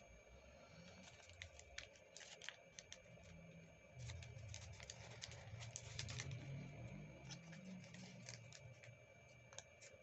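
Faint crinkling and light clicks of a sheet of origami paper being folded and creased by hand, with a soft low rumble of hand handling in the middle.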